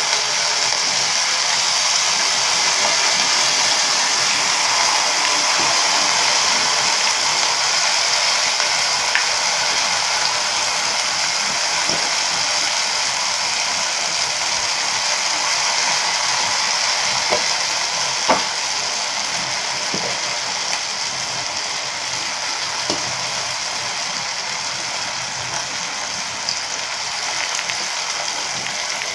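Hot oil sizzling steadily as batter-coated cauliflower florets deep-fry in a non-stick kadai, easing off slightly over time. A few sharp clicks from a wooden spatula against the pan as the pieces are stirred.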